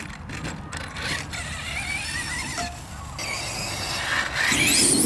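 Arrma Kraton 8S EXB RC monster truck, with a Hobbywing Max5 controller and 1100 kV brushless motor on 4S, running hard: a wavering electric motor and drivetrain whine over tyre noise. It gets louder near the end as the truck speeds up.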